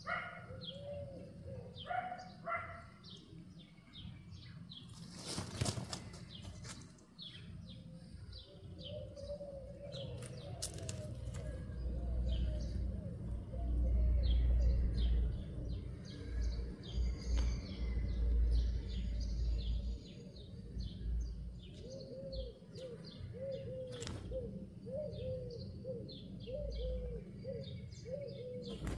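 Small birds chirping over and over, with a lower call repeated in runs of arched notes, and a low rumble in the middle.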